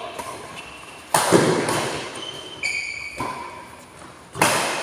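Badminton rackets hitting the shuttlecock during a fast doubles rally: sharp smacks that ring on in a large hall, a loud one about a second in and another near the end, with lighter hits between.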